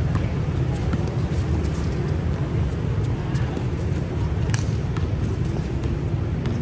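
Steady low rumble of outdoor background noise with a few scattered sharp knocks, the loudest about four and a half seconds in.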